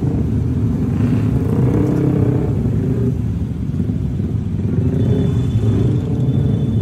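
Motorcycle engines running together in a steady low rumble, with some rising and falling in the engine note.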